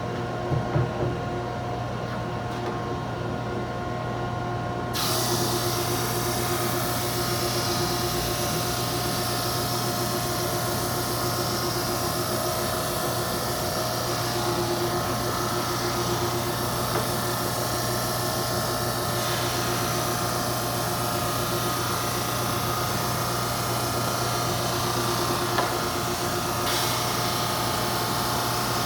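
Auto-feed belt sander running along with a shop dust-collection vacuum: a steady machine hum with several steady tones. About five seconds in, a hiss of sanding comes in suddenly and holds as a cedar board feeds through the abrasive belt.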